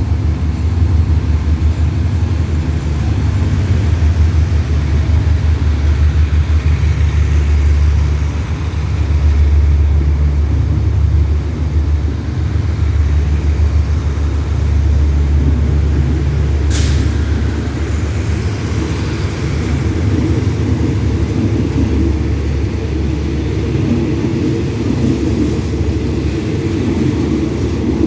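Diesel-electric locomotive engine running with a deep, pulsing rumble. It grows somewhat fuller in the last third, and there is one brief sharp hiss of air a little over halfway through.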